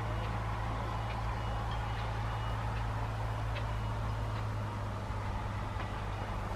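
A steady low mechanical hum, with a faint thin high tone coming and going and a few light ticks.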